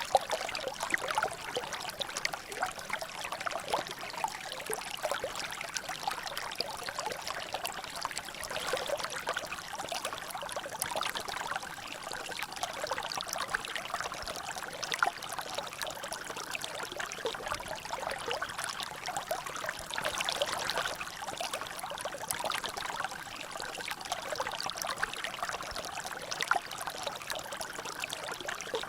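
Water trickling and dripping steadily in a small natural drainage, with many small irregular splashes and an occasional louder drop.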